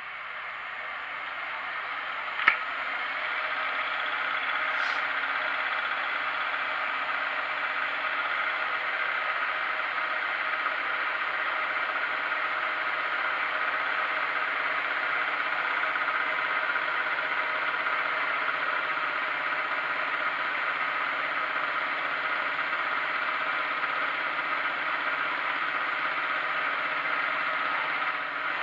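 Milling machine spindle running at about 1,000 rpm, a homemade high-speed-steel fly cutter cutting a gear tooth into a brass blank on a dividing head: a steady whirring cut that builds over the first few seconds and then holds. A sharp click about two and a half seconds in.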